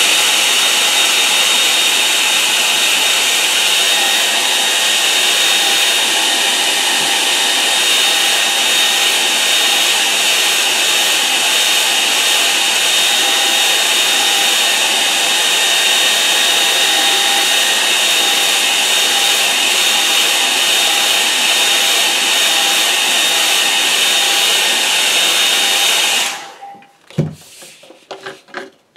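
Hair dryer blowing steadily on high while drying a wet watercolour wash, with a faint whine in the rushing air. It switches off about 26 seconds in, followed by a few light knocks.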